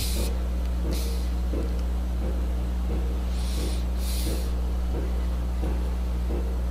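A steady low electrical hum in the recording, with a few short breathy puffs at the microphone: one about a second in and two close together around four seconds in.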